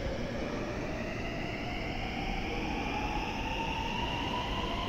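JR West 683 series electric limited express pulling away from a stop. Its traction motors whine in several tones that rise steadily in pitch as it gathers speed, over a low rumble.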